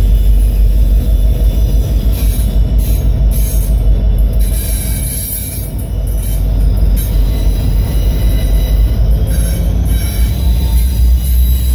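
Double-stack intermodal container well cars rolling past: a heavy, steady low rumble of steel wheels on rail. Thin high-pitched wheel squeal rings above it.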